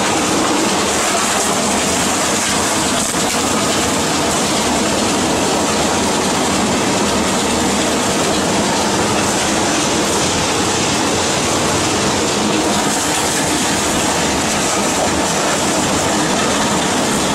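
Double-shaft shredder running under load, its two cutter shafts tearing bags into small pieces: a steady, loud mechanical noise without a break.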